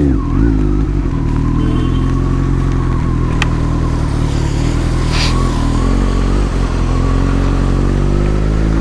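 Superbike engine running at a steady cruising speed, heard through a helmet microphone, its note climbing slightly near the end. A sharp click comes about three and a half seconds in, and a short burst of hiss about five seconds in.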